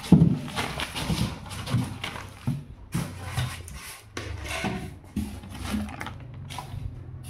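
Newspaper rustling and crinkling in irregular bursts as it is handled and laid over a polystyrene foam box, with a few dull bumps.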